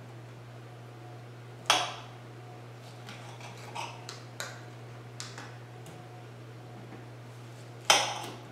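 Kitchen knife cutting pineapple on a cutting board: a sharp knock about two seconds in, a few light taps in the middle, and a louder knock near the end. A steady low hum runs underneath.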